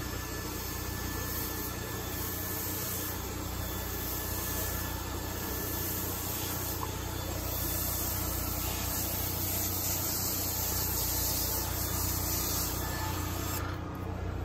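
Carpet pre-spray wand hissing steadily as it sprays cleaning solution onto the carpet, over a steady low hum. The hiss drops out briefly near the end.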